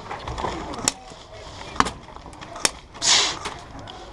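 Airsoft gunfire: three sharp single pops about a second apart, then a brief hissing burst near the end, over a low background rumble.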